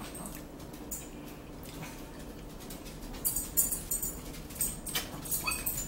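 Close-up chewing of a mouthful of salad: wet, crackly crunching and smacking that starts softly and grows louder and busier about three seconds in.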